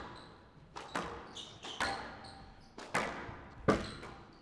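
Squash ball being struck by rackets and hitting the court walls during a rally: sharp hits about once a second, each followed by a short echo.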